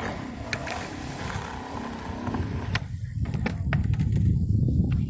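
Skateboard wheels rolling over pavement, a low rumble that grows louder about three and a half seconds in, with sharp clicks from cracks and grit under the wheels. Wind buffets the microphone.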